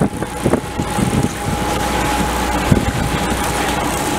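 Sportfishing boat's engines running with wind buffeting the microphone and wake water rushing, a steady whine over them, and a few short knocks.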